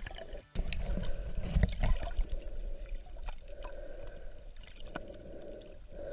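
Muffled underwater sound picked up by a submerged action camera: low sloshing rumble and gurgling with scattered small clicks and crackles, briefly cutting out about half a second in.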